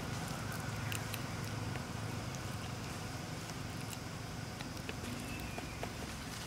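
Steady low rumble of roadside outdoor ambience, with faint scattered clicks and taps.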